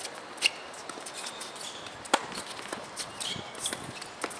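Tennis rally: sharp racket strikes on the ball, the two loudest about a second and a half apart, with fainter clicks and footsteps of players moving on the hard court.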